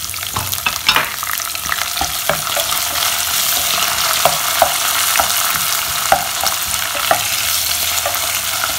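Sliced onions, curry leaves and rampe (pandan) leaves sizzling in hot coconut oil in a pot, a steady frying hiss, stirred with a wooden spatula that clicks against the pot now and then. This is the tempering stage of a Sri Lankan curry.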